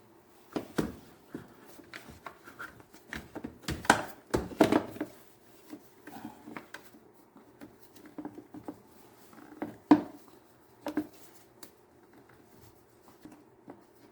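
Hands working a car's plastic engine air box and filter: scattered clicks and knocks, with a cluster of louder knocks about four seconds in and a sharp single knock about ten seconds in.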